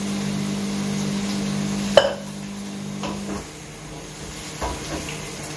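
A wooden spatula stirs vegetables in a frying pan, with one sharp knock against the pan about two seconds in and a few lighter knocks later. A steady low hum runs underneath and stops a little past halfway.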